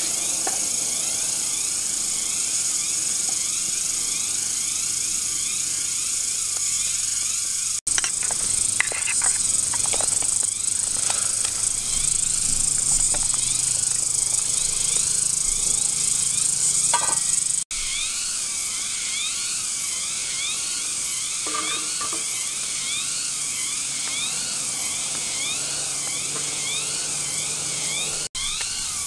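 A steady, high-pitched chorus of forest insects buzzing, with repeating wavy pulsing calls a few times a second, and now and then a soft clink or knock of cooking utensils.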